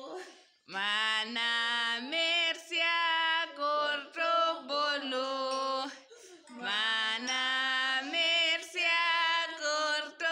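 A woman's voice singing a melody, in two long phrases with a short break about six seconds in.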